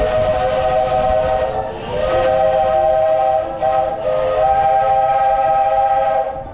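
Steam locomotive whistle sounding in three long blasts in close succession, over the running rumble of the train.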